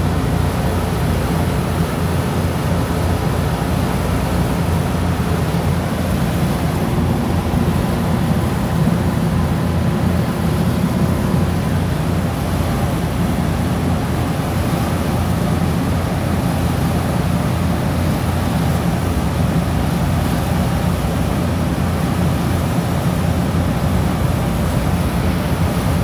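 Steady low mechanical hum of rooftop refrigeration equipment running, with no change in level throughout.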